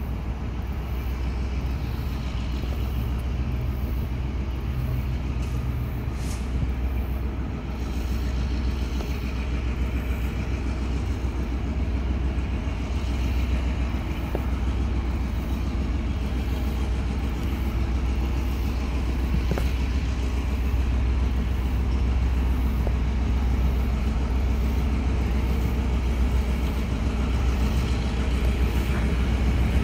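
EMD GP38 diesel locomotive's V16 two-stroke engine running with a steady low throb, growing gradually louder as the locomotive approaches.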